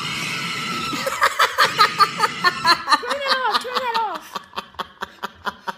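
Laughter in quick, regular bursts starting about a second in, some with a falling pitch.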